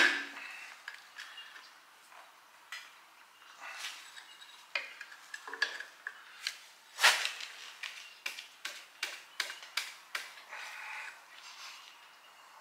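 Metal-on-metal clanks and taps of a steel bar working at the crankshaft pulley of a Ford flathead V8, a pulley stuck fast on old oil. A sharp clank right at the start and a louder knock about seven seconds in, then a quick run of light clinks, about four a second, between eight and ten seconds in.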